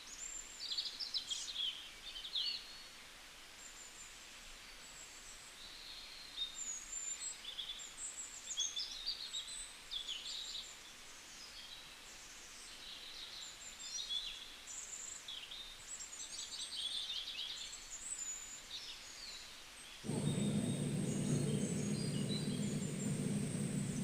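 Several small birds chirping and singing, short high calls and trills overlapping one another. About twenty seconds in, a steady low hum and a thin high whine come in abruptly under the birdsong and continue.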